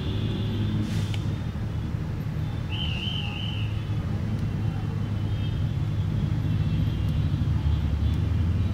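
Steady low background rumble, with a single sharp click about a second in and a brief warbling chirp about three seconds in.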